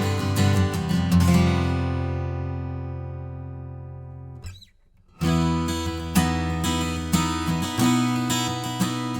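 Guild F-250CE Deluxe jumbo acoustic guitar being strummed. A chord is left to ring and fade for about three seconds, there is a brief pause, and then the playing starts again with a strummed chord and picked notes.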